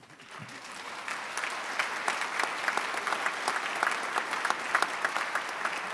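Audience applauding, many people clapping at once, swelling over the first second or so and then holding steady.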